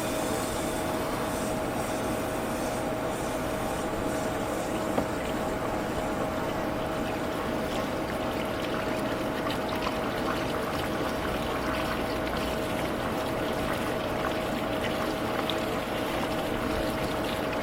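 Water from a hose-fed flushing wand spraying inside an RV water heater tank and rushing out of the drain opening: a steady, unbroken rush of water over a constant hum, flushing sediment from the tank.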